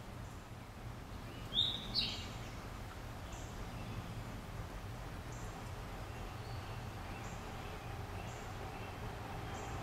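Two short, high-pitched chirps close together about a second and a half in, over a steady low outdoor background hum.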